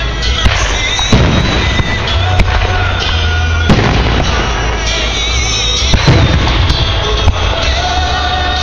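Fireworks going off in a string of sharp bangs and pops, with music playing throughout.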